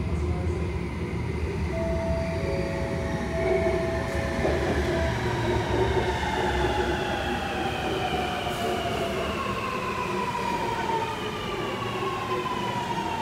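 Alstom Metropolis metro train pulling into an underground station and braking: an electric whine that falls steadily in pitch as the train slows, over a low rumble.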